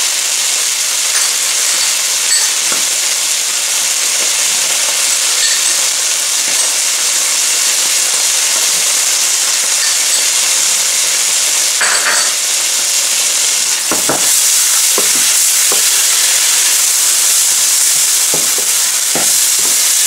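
Chili sauce and green chili sizzling in hot oil in a frying pan, a steady hiss. In the last few seconds a wooden spatula stirs the pan and knocks against it several times.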